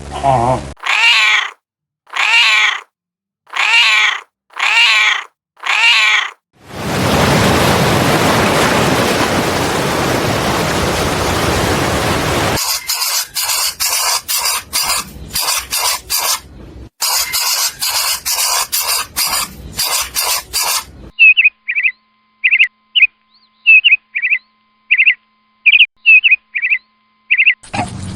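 A series of different animal sounds: about six short pitched calls, then a steady hiss lasting about six seconds, then rapid clicking chatter, then a run of short high chirps.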